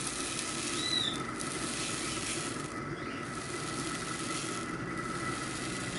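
Sodium hydroxide (lye) granules being poured into a bowl on a digital scale, a steady hissing trickle, with a short high chirp about a second in.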